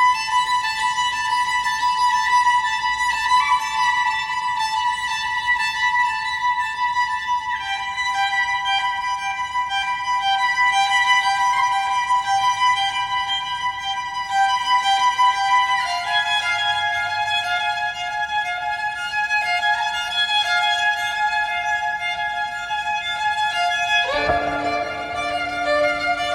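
Slow music of long held violin notes sounding together, the chord changing every few seconds, with lower notes joining near the end.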